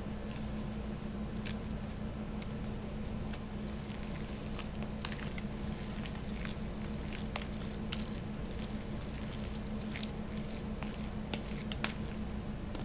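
A metal spoon stirring and mashing a thick, wet filling of shredded chicken, refried beans and salsa in a plastic bowl: squishing with irregular clicks of the spoon against the bowl, over a steady low hum.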